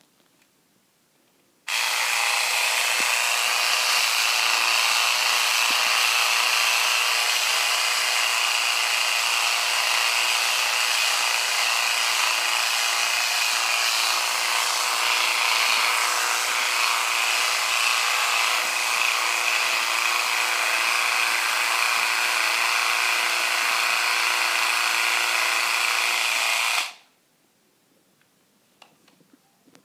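Electric epilator running with a steady buzz, switched on about two seconds in and switched off about three seconds before the end.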